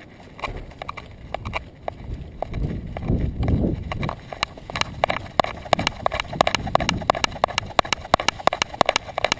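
Rapid clicking and tapping in step with a small terrier's trot, picked up by the camera strapped to its back, growing busier in the second half. A low rumble swells and fades about three seconds in.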